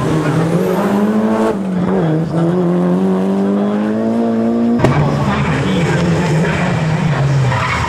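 Mitsubishi Lancer Evolution rally cars at full throttle, their turbocharged four-cylinder engines loud and steady. The engine note climbs slowly as a car accelerates, breaks off abruptly at about a second and a half and again near five seconds, and then another car's engine takes over, its pitch dipping and rising through gear changes.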